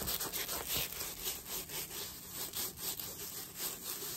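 A rolled diamond-painting canvas with its plastic cover film rustling and rubbing as it is unrolled off a white tube, a run of short scraping rustles.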